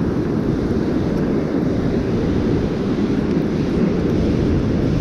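Wind buffeting the microphone over the steady low rumble of ocean surf on the beach.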